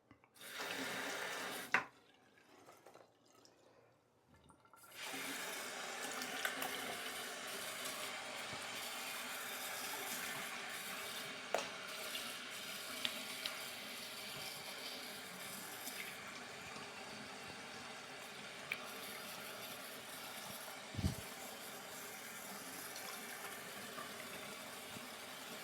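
Tap water running into a sink, briefly at first and then steadily for most of the time after a short pause, with a few light clicks and knocks.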